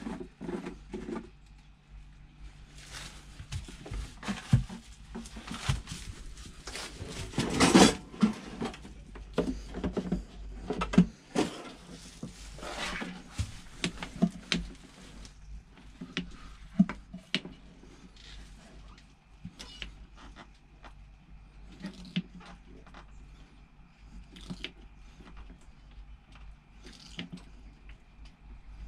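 Hand oil-extraction pump sucking the engine oil out of a Bukh DV10 marine diesel's sump through a hose, with irregular clicks and knocks from the pump and hose. A stretch of hissing runs through the first half and is loudest about eight seconds in.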